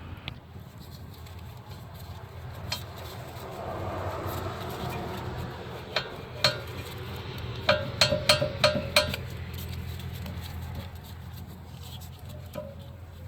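Sharp metallic clinks with a short ring from hand tools and steel brake parts being handled at a rear disc brake: two single clinks, then a quick run of about six near the middle.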